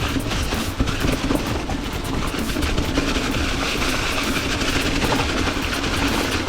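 Ibis Ripmo mountain bike descending a rocky, leaf-covered trail: tyres rolling and bumping over rocks, with the bike rattling and clattering without a break.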